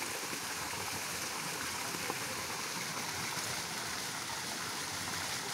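Steady rush of running water at a hot-spring pool, with a faint tick about two seconds in.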